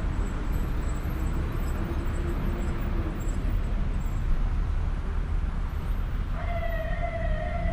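Outdoor road traffic noise with a steady low rumble. About six seconds in, a steady pitched tone starts and holds for over a second.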